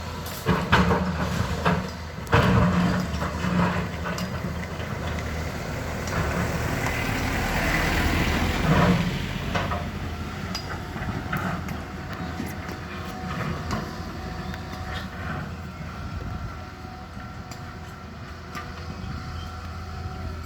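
Caterpillar excavator's diesel engine running steadily, with a few sharp metallic clanks in the first three seconds and a swell in engine and machine noise about eight seconds in.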